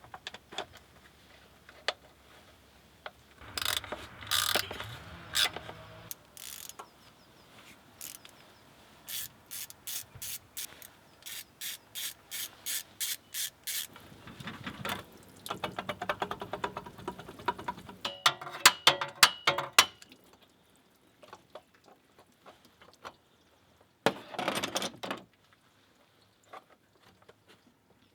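Ratchet wrench clicking in runs of quick strokes as bolts are turned, with short bursts of tools and metal parts being handled in between.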